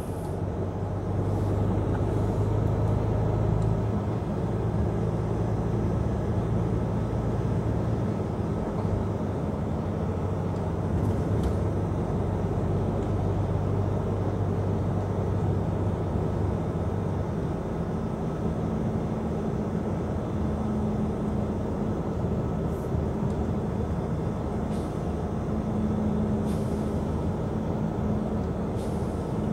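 Truck's diesel engine and tyre noise heard from inside the cab while driving, a steady low drone. The engine note changes about halfway through.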